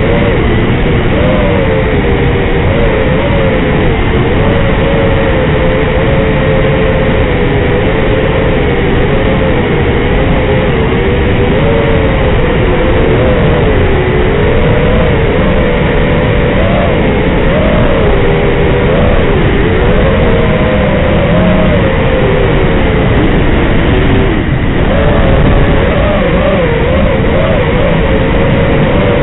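Brushless motors of an FPV quadcopter (Racerstar 2205) whining in flight, the pitch wavering up and down with throttle, over a constant rough hiss. The sound drops briefly about 24 seconds in.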